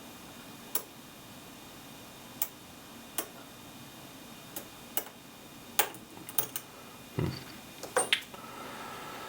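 Metal dimple pick clicking irregularly against the pins inside a Richter EuroXStar dimple lock as it is picked under tension, about a dozen sharp ticks with a quick cluster near the end.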